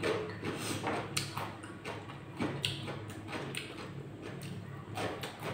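Eating sounds: irregular soft clicks and smacks of fingers mixing rice on a plate and of chewing, over a low steady hum.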